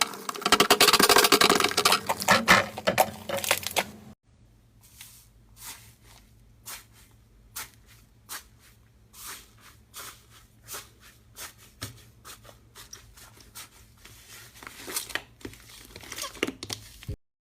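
Slime being squeezed and worked by hand, with dense crackling and popping for about four seconds. It then cuts to a quieter stretch of separate sticky clicks and pops, which stops abruptly near the end.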